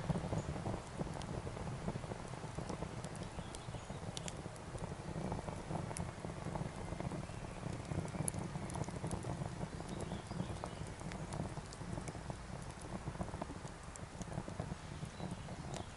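Small sticks of wood burning on a cast-iron Dutch oven lid over a rocket stove, crackling and popping irregularly, with a steady low rumble underneath.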